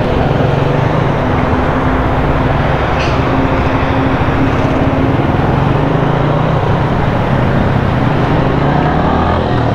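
Motorcycle engine running steadily while riding, with a constant rush of wind and road noise over the helmet microphone.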